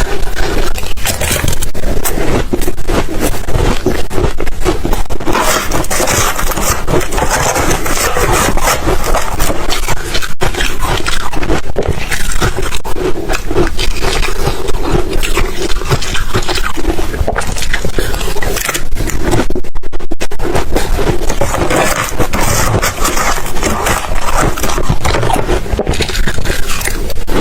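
Ice being bitten and chewed close to the microphone: continuous, dense, loud crunching and scraping.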